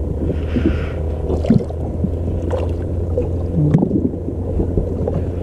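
Water splashing and gurgling as a walleye is released by hand over the side of a boat, with a brief splash about half a second in. Under it runs a steady low rumble of wind on the microphone.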